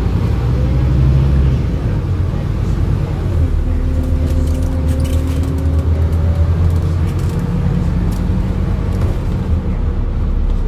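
Scania N230UD double-decker bus's diesel engine running as the bus drives along, heard from inside the upper deck. A rising whine comes in midway as it gathers speed, and there are light rattles from the bodywork.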